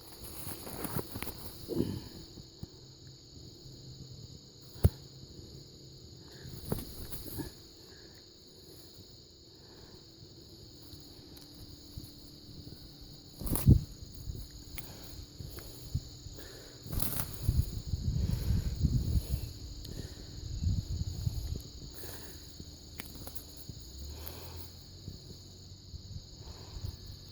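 Outdoor ambience with a steady high chirring of insects, broken by two sharp knocks and by low rustling, footsteps or handling noise, heaviest about two-thirds of the way in.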